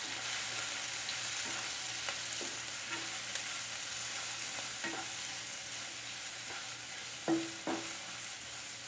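Chopped onion, bell pepper and green chili sizzling in oil in a nonstick frying pan while a spatula stirs them, scraping and tapping the pan. Two louder knocks of the spatula against the pan ring briefly near the end.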